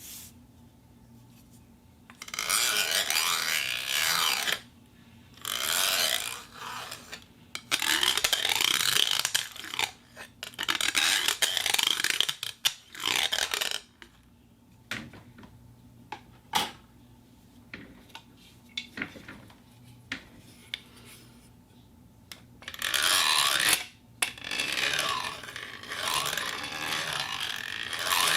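Plastic cup rubbed and scraped for foley, in bursts of a second or two each with squeaky sliding tones, and a few sharp clicks in a quieter stretch around the middle.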